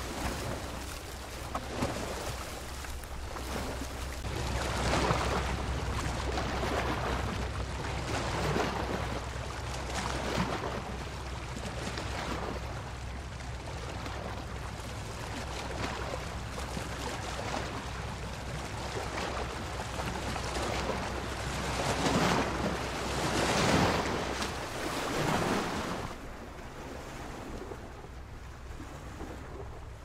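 Ocean surf: waves breaking and washing in with slow surges every few seconds over a steady low rumble. The loudest crashes come a little past two-thirds through.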